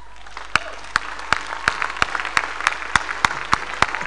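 A congregation applauding, starting just after the opening, with louder sharp claps close by about three times a second over the dense clapping.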